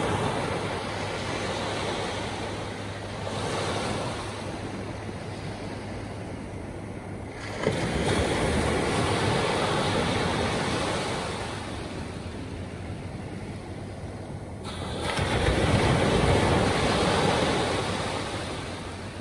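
Small waves of ocean surf breaking and washing up the beach, the sound rising and falling in surges every few seconds, with one wave crashing sharply about eight seconds in.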